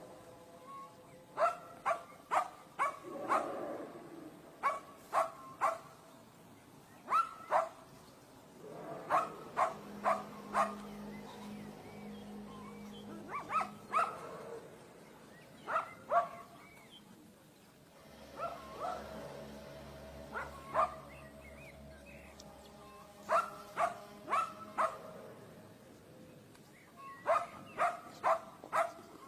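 A dog barking in short groups of two to five barks, repeated every few seconds, with a faint steady low hum underneath at times.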